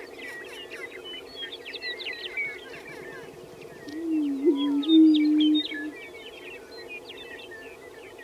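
Greater prairie chicken booming on its lek: one low moaning call about two seconds long, starting about four seconds in. It sounds over a steady low drone and many short, high chirps and calls.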